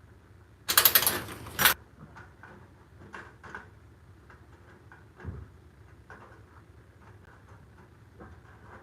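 A cordless power driver runs in a single burst of about a second, driving a lock mounting screw, followed by light clicks and a dull thump of metal lock parts being handled.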